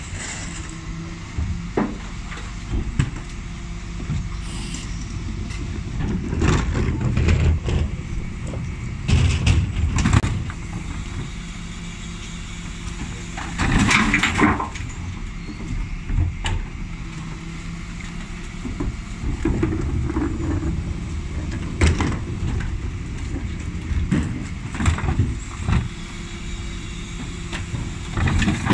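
Dennis Elite 6 refuse truck running behind its Terberg OmniDEL bin lift as the lift raises and tips wheelie bins. A steady low engine and hydraulic hum is broken by repeated knocks and clatters of bins and lift, with a louder burst about halfway.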